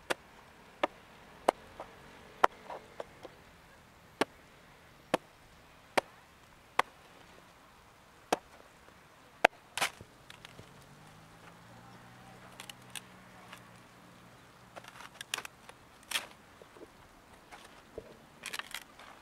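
Sharp single knocks, about one a second for the first ten seconds, of a hand tool striking a painted canvas on its board, followed by softer scattered knocks and rustling as the canvas is handled and lifted.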